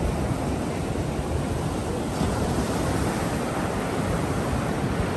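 Ocean surf breaking and washing up the beach as a steady rush, with wind rumbling on the microphone.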